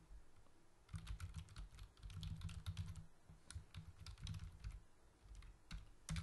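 Typing on a computer keyboard: quick runs of key clicks, starting about a second in.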